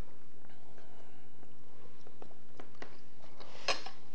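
Quiet eating sounds at a table: a few faint scattered clicks of cutlery and dishes, with one sharper click near the end, over a faint steady hum.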